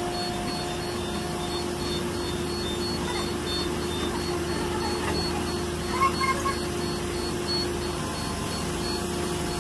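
Excavator's diesel engine running at a steady pitch, with a few brief sharp sounds about six seconds in.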